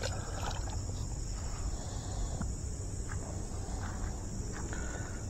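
Steady high-pitched drone of an insect chorus. A small splash near the start as a released crappie drops into the pond, then scattered brushing of footsteps through tall grass.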